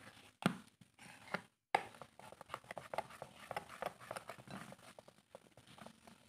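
Metal spoon stirring a thick mayonnaise, yogurt and cornflour mix in a ceramic bowl: faint, irregular clicks and scrapes of the spoon against the bowl, with a few louder taps in the first two seconds.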